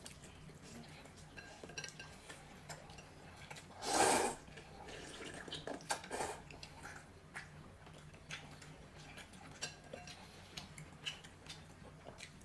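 Eating at the table: chopsticks clicking against bowls, with a loud slurp about four seconds in.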